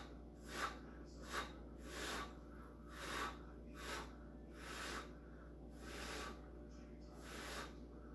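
A person blowing short puffs of breath by mouth, about one a second, to push a puddle of wet acrylic paint outward into a bloom.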